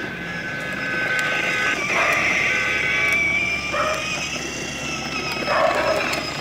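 Steady whine of a child's battery-powered ride-on toy scooter's electric motor as it drives, its pitch shifting about two seconds in.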